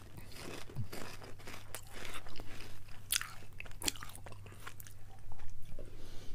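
Potato chips being crunched and chewed close to the microphone, a run of crisp crackling crunches with the sharpest about three to four seconds in.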